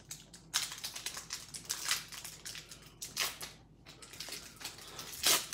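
Foil wrapper of a 1992 Pinnacle baseball card pack being torn open by hand: a run of crinkling, crackling rustles, with a louder crinkle near the end.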